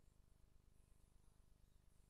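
Near silence, with only a faint low hum and hiss.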